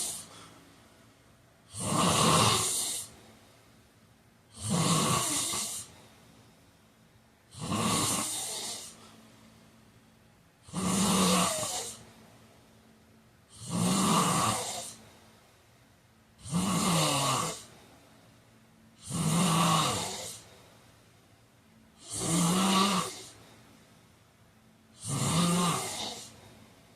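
A man snoring in deep sleep, a rhythmic rasping snore about once every three seconds, each lasting about a second with a low buzzing tone, and quiet breathing between snores.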